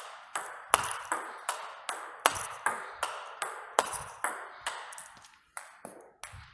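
Table tennis rally: the ball clicking sharply off the rubber-faced paddles and the table, about two to three clicks a second with echo from the hall, thinning out near the end.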